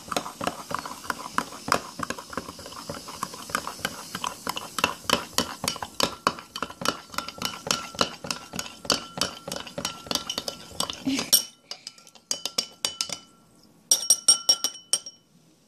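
Metal spoon stirring baking soda into white wine in a stemmed wine glass, clinking against the glass many times a second for about eleven seconds. Then a few scattered clinks, and near the end a short run of sharper ringing taps of the spoon on the glass.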